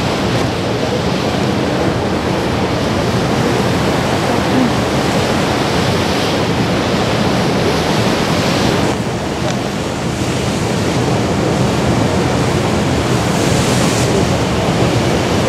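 Steady rush of wind on the microphone mixed with choppy water washing, with a low, steady drone underneath.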